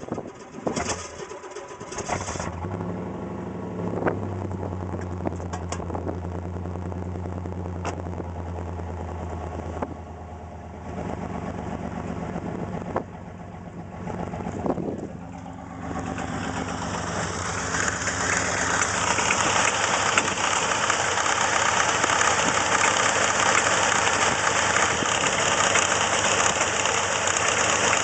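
Car engine starting and then idling with its accessory belt and faulty belt tensioner running. About halfway through, a much louder noisy rattle from the engine bay builds up and continues.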